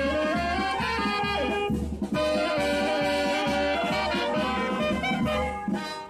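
Uniformed town wind band of clarinets, saxophones and brass playing a tune together, with a regular bass beat under it.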